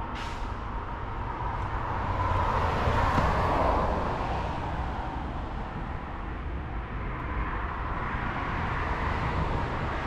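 Road traffic: a passing vehicle's noise swells to a peak about three to four seconds in and fades, over a continuous low rumble of traffic.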